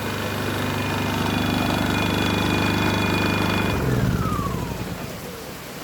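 A motor or engine running steadily, then cut off about four seconds in, its whine falling in pitch as it winds down.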